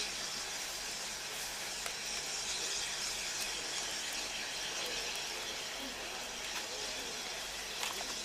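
Steady hiss of escaping steam from LMS 8F and Black 5 steam locomotives, with a couple of sharp clicks, the strongest near the end.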